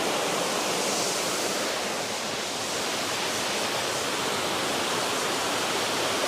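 A waterfall's steady rushing noise: a high cascade of water falling onto rocks.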